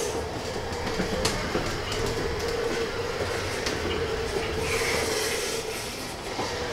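Full-size aluminum R2-D2 replica driving and turning on a hardwood floor: a steady drive-motor whine over the rumble of its wheels rolling. This is a test drive on center-foot casters newly refitted with rollerblade wheels in place of ones whose bearings had been grinding.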